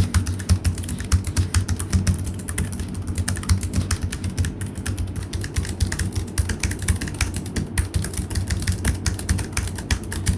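Fast typing on the built-in mechanical keyboard of an Illegear Onyx M gaming laptop: a dense, unbroken run of key clicks.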